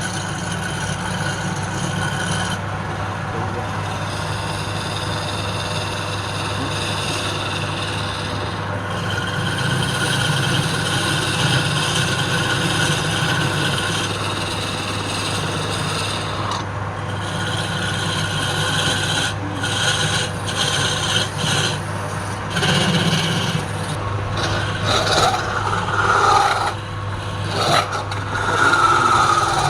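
A wood lathe running with a steady motor hum while a tool rasps and scrapes against the spinning wooden workpiece, breaking off briefly several times in the second half.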